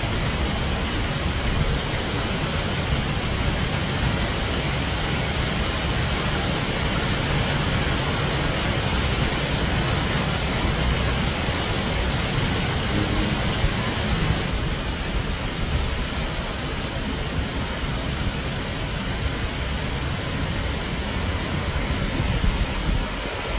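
Heavy rain falling on a wet road and pavement, a steady hiss with a low rumble underneath.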